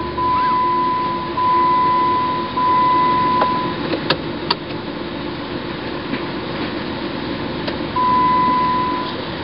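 2010 Jeep Wrangler JK's 3.8-litre V6 idling through an MBRP aftermarket exhaust just after starting. A steady high electronic beep sounds in stretches of about a second over the first four seconds and again near the end, and a few sharp clicks come around the middle.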